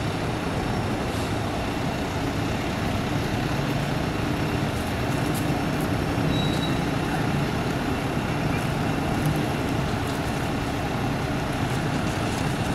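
Steady background noise of road traffic, a continuous even rumble with a faint low engine hum.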